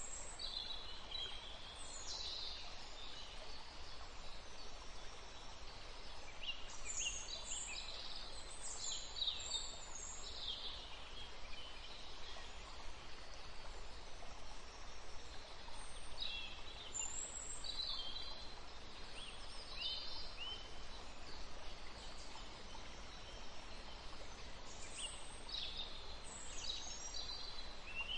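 Birds chirping and singing in scattered clusters over a steady background hiss.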